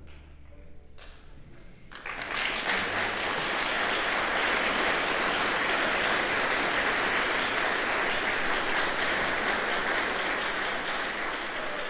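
Audience applause after a string orchestra piece ends: the last low note dies away, a few scattered claps follow, and about two seconds in the clapping breaks into full, steady applause.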